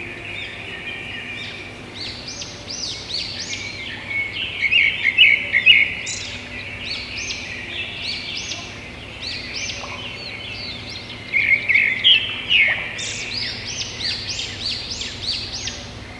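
Small birds chirping and twittering in many quick, high, overlapping notes, louder in two spells about five seconds in and again about twelve seconds in, over a faint steady low hum.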